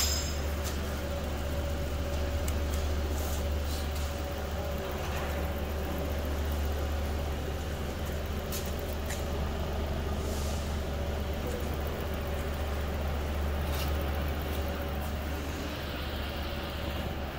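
Steady low hum and whir of an electric industrial batch oven's top-mounted motors running, with a few faint clicks.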